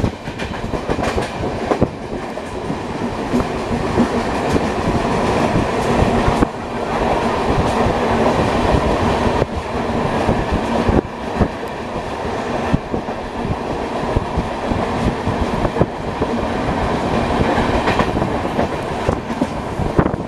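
Passenger train running along the track, a steady rumble with wheels clattering over rail joints.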